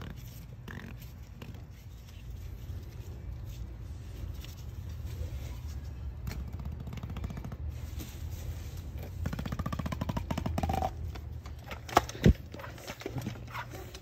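Handling noise from a syringe-style sealant injector being pushed into a bicycle tire's valve stem: a rapid creaking rattle a little past the middle, then two sharp clicks about twelve seconds in, over a steady low background rumble.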